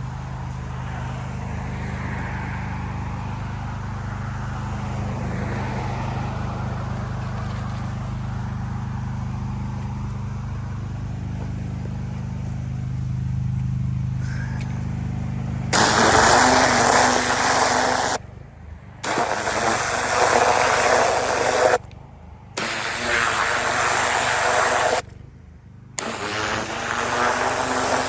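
Pressure washer's engine running steadily, then about two-thirds of the way in the spray wand opens up with a loud hiss of water jetting into the soil, in four bursts of two to three seconds with short gaps as the trigger is released and squeezed again.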